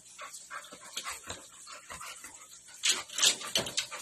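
A dog whining in a series of short bursts, loudest in a cluster about three seconds in.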